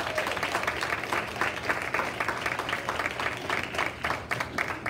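Audience applauding: many people clapping in a dense patter that thins out near the end.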